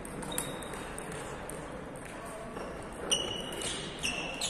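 Table tennis ball in play: sharp, ringing pings of the ball off the table and bats, one shortly after the start and then a quick run of about four, half a second apart, near the end.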